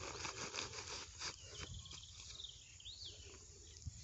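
Faint rustling and crinkling of a plastic sack being handled on the grass as a snake is released from it, then a faint high trilling call and a short rising-and-falling whistle.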